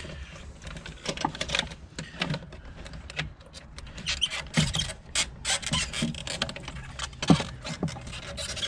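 A plastic fuel pump and sender assembly being worked into a car's fuel tank opening: irregular scraping, squeaking and small clicks of plastic against the tank flange.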